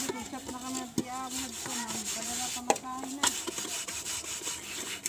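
A hand scrubbing the soot-blackened bottom of a metal rice pot with a wet, gritty paste: a rough, scraping rub. A person's voice talks over it for the first few seconds, and a few sharp knocks come through.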